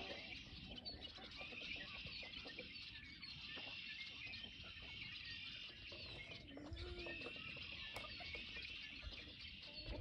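Faint chirping of birds that keeps on steadily, with a short low call about two-thirds of the way in.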